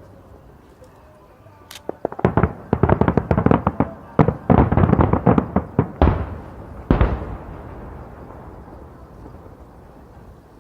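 Fireworks exploding: a rapid barrage of crackling bangs starting about two seconds in, then two heavy booms about a second apart, followed by a fading rumble.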